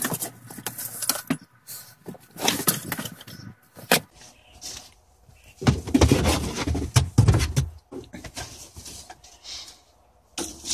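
Handling noises from getting at a car's spare tire: scattered metal clinks and knocks, with a louder stretch of rubbing and bumping about halfway through.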